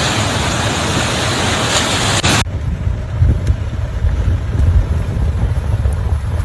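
A loud, even rushing roar, cut off abruptly about two and a half seconds in and followed by a lower rumble with a few scattered knocks.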